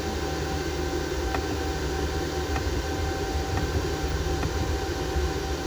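Steady mechanical hum and hiss, like a fan or air-conditioning blower, with a constant mid-pitched tone and faint light ticks about once a second.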